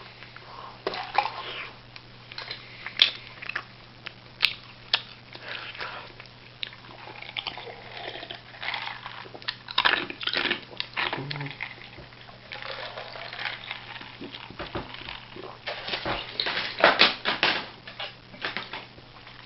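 A person chewing and biting into a hamburger: irregular wet smacking and clicking mouth noises, close to the microphone.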